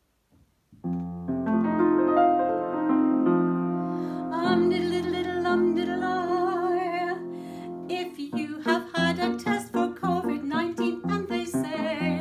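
Upright piano playing an introduction of held chords, starting about a second in; a woman's singing voice joins about four seconds in, and from about eight seconds the piano turns to a rhythmic, bouncing accompaniment under the voice.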